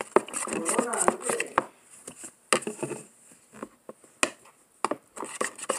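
Scattered sharp knocks and taps of a utensil against a plastic mixing bowl as glue and activator are stirred into slime, a few spread through with a small cluster near the end.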